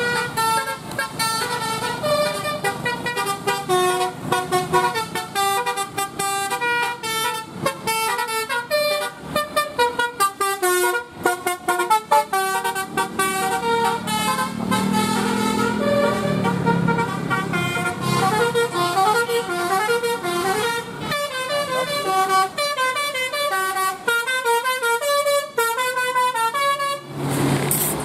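Bus telolet horn: a multi-tone horn set playing quick runs of short pitched notes, one melodic phrase after another. A deeper tone sounds underneath for a few seconds around the middle.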